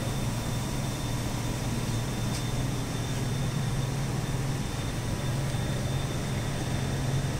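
Steady running noise of an incinerator's burner and blowers: an even rush with a strong low hum and a faint steady high whine.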